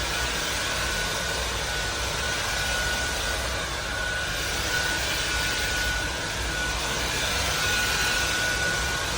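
SunSare X7A cordless stick vacuum cleaner running steadily, a constant rush of suction with a thin high whine from its motor.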